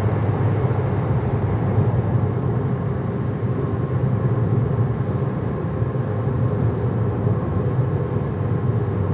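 Steady road and engine noise of a car driving at speed, heard inside the cabin: a constant low rumble of tyres and engine with no change in pitch.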